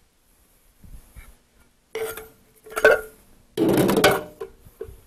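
Metal food cans and kitchen containers knocked and clinked together as they are handled on a counter: a few soft knocks, sharp ringing clinks about two and three seconds in, and a longer clatter just before four seconds.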